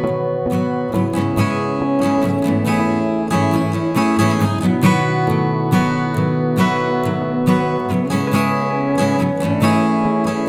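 Background music: an acoustic guitar strummed and plucked in a steady rhythm.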